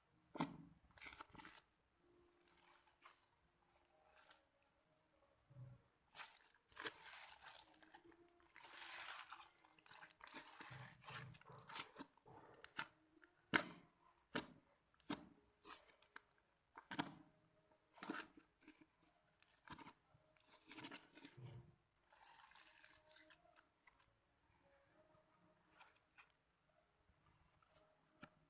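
Hands working slime and slime-making materials: irregular crackling, tearing and sticky clicking sounds, with a few sharp clicks.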